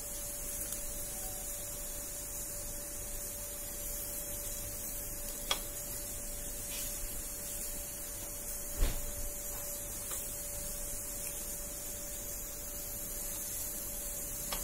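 Steady low hum with a faint hiss behind it, broken by a small click about five and a half seconds in and a dull thump about nine seconds in.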